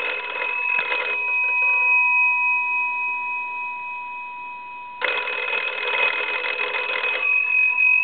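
Monarch wooden wall telephone's original twin brass bell gongs ringing: a burst of rapid clapper strikes that stops about a second in, the gongs sounding on as they fade, then a second ring about five seconds in.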